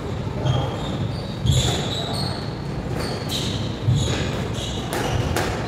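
Court shoes squeaking repeatedly on a wooden squash court floor as players shift their feet, with three dull thuds in between.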